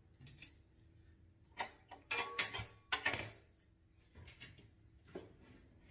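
Kitchen utensils and a pan clattering: a short burst of sharp knocks and clicks about two to three seconds in, with a brief ring, and a few fainter ticks before and after.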